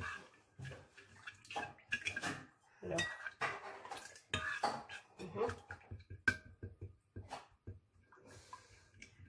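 A spoon stirring ground flaxseed and water in a ceramic bowl to a thick mix, with irregular clinks and scrapes against the bowl and a sharper clink about six seconds in.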